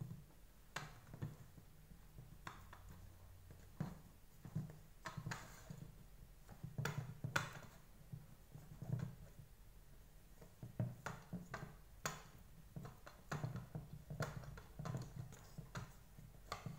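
Scattered light clicks, taps and short rustles of hands handling the small DC motor and plastic brush-head parts of a Deerma VC25 cordless vacuum, with electrical tape being wrapped around the motor's wires.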